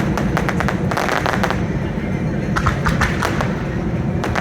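Fireworks going off: two clusters of rapid sharp bangs and crackles over a continuous low rumble of shells bursting.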